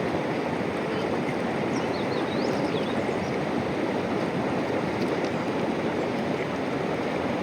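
River water rushing steadily, with a few faint high chirps about two to three seconds in.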